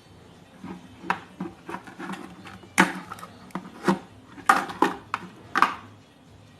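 Hard clicks and knocks of tools and parts being handled on a workbench during circuit-board repair, irregular, with the loudest half-dozen in the second half.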